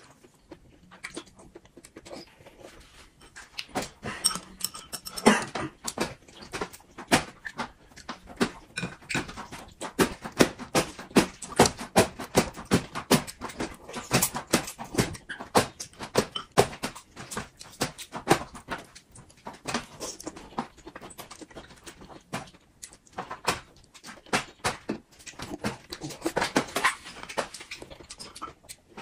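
Close-miked mukbang eating sounds: wet chewing and smacking, slurping of food drawn from a bowl with chopsticks, and clicks of chopsticks against the bowl. The sounds come as a dense run of sharp clicks, with louder slurps several times.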